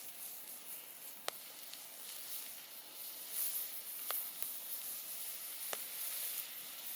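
Wood campfire burning with a steady hiss, broken by three sharp crackling pops spread through it.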